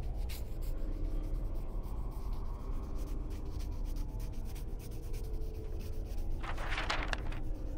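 Sheets of paper rustling as they are handled, with one louder rustle about six and a half seconds in, over a low steady hum.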